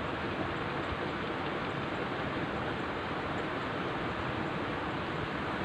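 Steady rushing outdoor noise, even throughout, with no distinct events.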